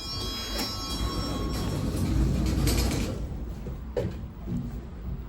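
A ringing tone dies away in the first second, then lift doors slide with a rumbling run that peaks about two to three seconds in. A single knock follows about four seconds in.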